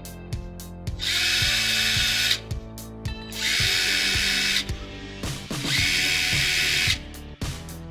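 Power drill boring three pilot holes, three separate runs of about a second and a quarter each with a steady motor whine, for the mounting screws. Background music with a beat plays underneath.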